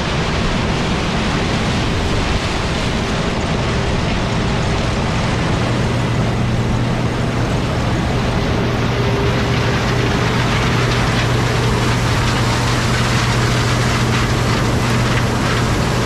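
John Deere combine harvesting corn: its engine and threshing machinery run steadily under a dense noise. A low, steady hum grows stronger about five to six seconds in as the combine comes closer.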